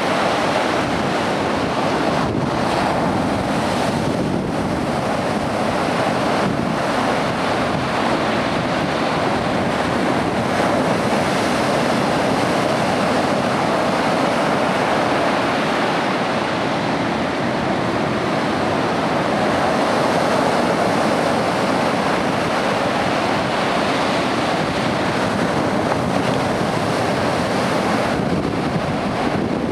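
Lake Superior surf: waves breaking in a steady, continuous wash and spilling over a flat rock ledge, with wind buffeting the microphone.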